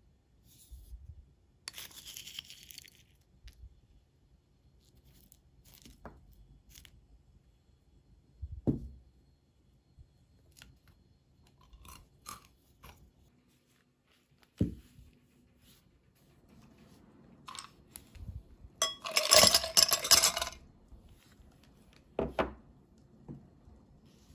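Crushed imo-kenpi (candied sweet potato sticks) crunching and rattling as they are tipped from a small ceramic bowl onto whipped coffee foam, with a few dull knocks of dishes on the table. The loudest sound is a dense clattering rattle lasting about a second and a half, some nineteen seconds in.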